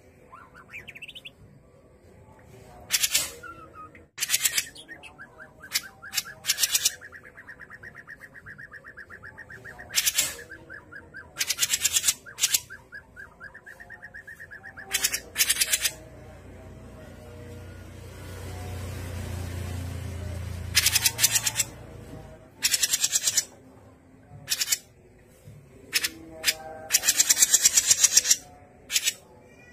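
Grey-cheeked bulbul (cucak jenggot) calling: loud, harsh chattering bursts, each a very fast rattle of notes, repeated many times, with a long steady rattling trill lasting several seconds a few seconds in. A low rumble comes in about two-thirds of the way through.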